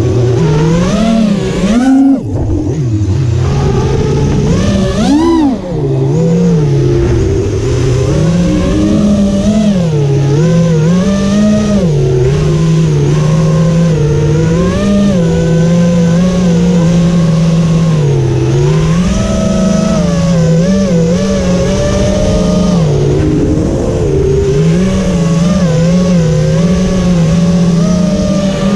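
FPV quadcopter's motors and propellers whining, the pitch swooping up and down continuously as the throttle changes, with quick dips and surges about two and five seconds in.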